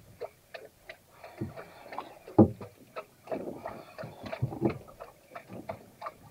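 Fishing reel clicking and ticking irregularly as the line is wound in while the jig is worked, with a few heavier knocks mixed in, the strongest about two and a half seconds in.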